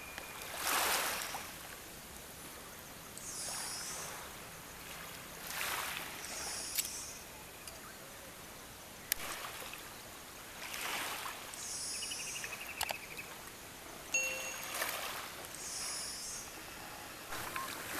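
Small waves lapping on a sandy, pebbly shore, each wash swelling up and falling away every few seconds.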